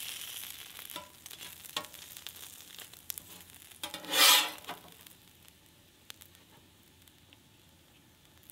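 Bacon sizzling on a Blackstone 17-inch propane griddle while a metal spatula turns it, with a few sharp taps of the spatula on the steel top. About four seconds in, the spatula scrapes loudly across the griddle, lifting the crispy bacon off, and after that only a faint sizzle is left.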